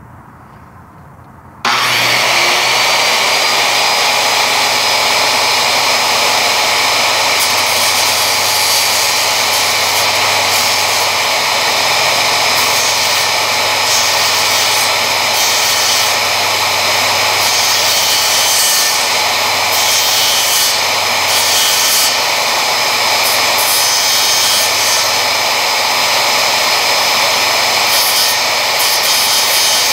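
An upside-down circular saw, used as a mini table saw, switches on about two seconds in and then runs steadily at speed, its blade cutting small pieces of exotic hardwood.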